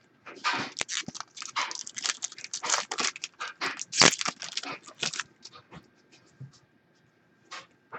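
Football trading cards being flipped and slid against one another in the hands: a quick, irregular run of papery rustles and scrapes that dies down about five seconds in, with a couple more near the end.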